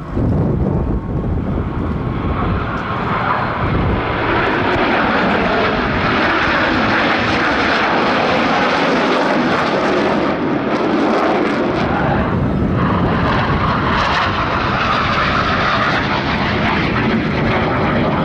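McDonnell Douglas F/A-18C Hornet jets of the Blue Angels flying past: a loud, steady jet-engine noise, with a brief dip about twelve seconds in.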